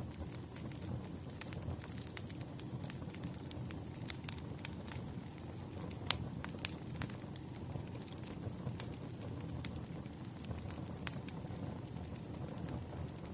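Firewood burning: a steady low rumble of flames with frequent sharp crackles and pops, one louder pop about six seconds in.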